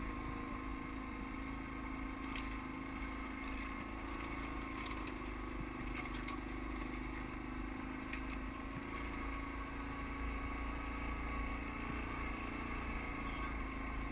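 ATV engine running at a steady pace while climbing a rocky dirt trail, with a few faint clicks and rattles over the rough ground.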